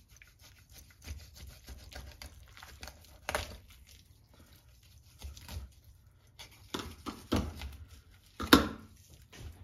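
Knife filleting a large halibut on a wet stainless steel table: soft wet tearing and scraping as the fillet is cut and pulled away from the skin, with scattered knocks, the loudest near the end.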